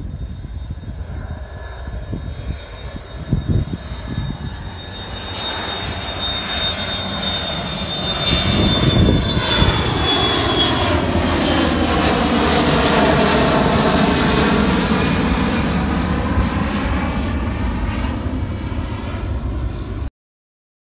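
Boeing 737 freighter's jet engines at takeoff thrust. A high fan whine that slides slightly down in pitch gives way to a loud, building roar as the jet rolls and passes, its tone sweeping as it goes. The sound cuts off abruptly near the end.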